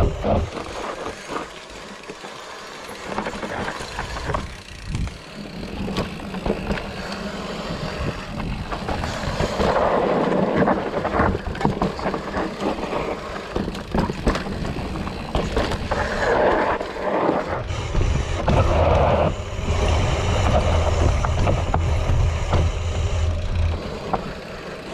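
Mountain bike being ridden on a trail: wind rumbling over the microphone, tyre noise and frequent knocks and rattles from the bike.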